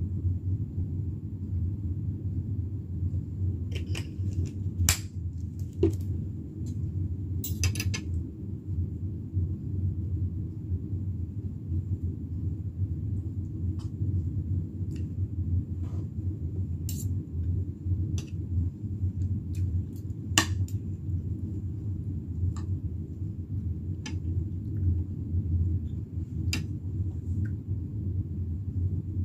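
Metal fork and spoon clinking and scraping against a ceramic plate: a dozen or so scattered sharp clinks, some in quick clusters, over a steady low hum.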